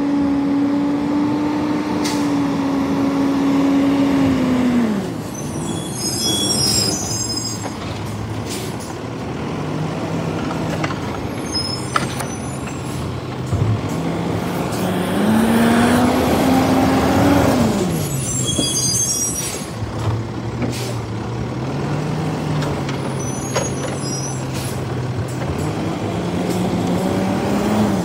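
Recycling truck's diesel engine running close by. It revs up and holds for a few seconds, drops back to idle, then revs up and falls back again about two-thirds of the way through, with several short air-brake hisses in between.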